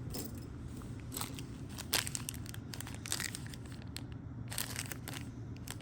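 Plastic packaging crinkling as it is handled, with irregular crackles and a few sharper snaps, over a low steady hum.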